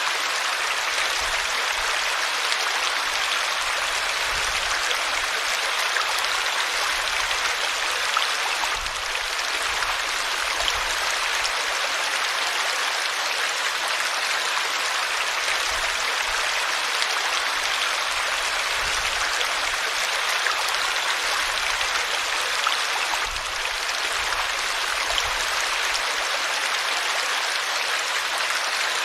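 River water flowing over rocks, a steady rushing hiss with no breaks.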